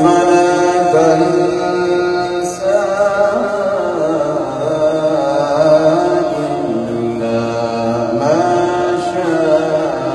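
A man's solo melodic Qur'an recitation (tilawah): long held, ornamented notes that waver and glide between pitches, phrase after phrase.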